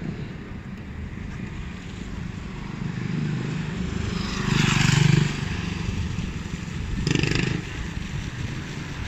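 City street traffic: a steady low rumble of road traffic, with two vehicles passing more loudly, one about halfway through and a shorter one near the end.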